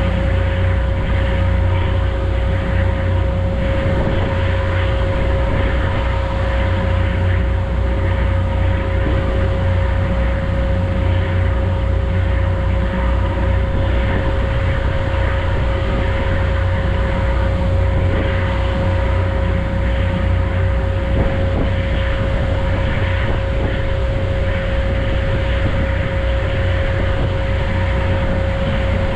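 Ferry's engines running steadily: a deep, unchanging drone with a constant mid-pitched hum over it.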